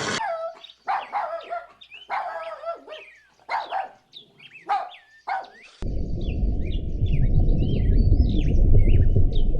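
A dog barking in a string of short barks. About six seconds in, it cuts to a loud, steady low rumble with small birds chirping over it.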